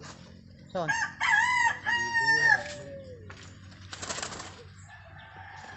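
A rooster crowing once, a long cock-a-doodle-doo in several parts. It is followed a second or so later by a short rustling hiss.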